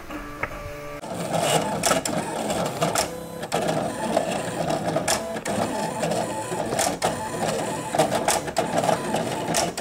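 Silhouette Curio cutting and embossing machine starting a job: quiet at first, then about a second in its motors and tool carriage start a steady whirr, with frequent light clicks.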